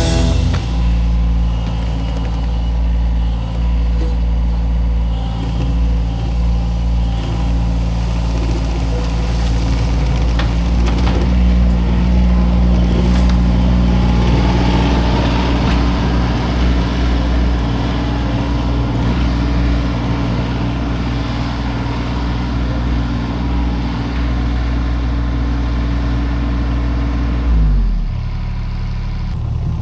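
Skid steer engine running steadily at high speed under work, then throttling down near the end, its pitch falling.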